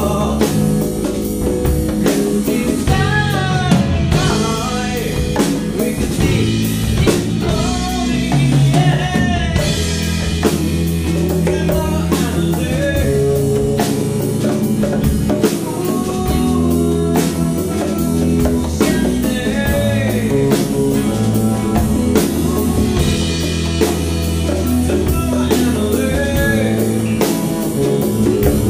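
Live blues-rock band playing: drum kit, electric bass, congas and clean electric guitar, with a moving bass line and a steady drum beat.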